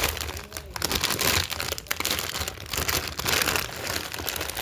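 Crinkly snack bag, likely a bag of taco chips, being handled and rummaged in, giving a run of irregular crackles.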